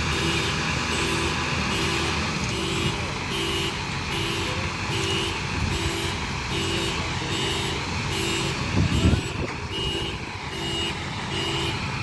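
A vehicle warning beeper repeating evenly at about two beeps a second over the low rumble of an idling Chevrolet Express minibus, with a brief louder low rumble about nine seconds in.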